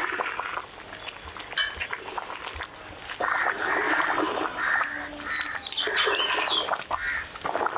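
Birds calling: a run of harsh, repeated calls from about three seconds in, with a short falling whistle around the middle.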